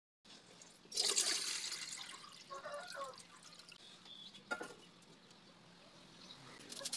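Water poured into an aluminium steamer pot, a splashing rush about a second in that tails off, followed by a light metal knock.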